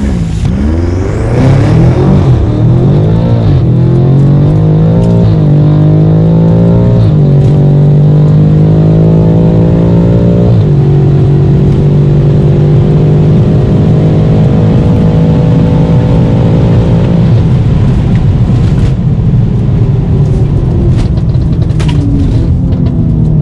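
Stage 3 tuned BMW F90 M5's twin-turbo 4.4-litre V8 at full throttle from a rolling start, its pitch climbing through the gears of the automatic with quick upshifts about five, seven and ten seconds in. After about seventeen seconds the revs drop and keep falling as the throttle is lifted and the car slows.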